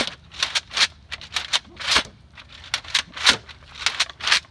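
Toilet-paper spit wad blaster firing over and over, quick hissy squirts coming irregularly about three a second.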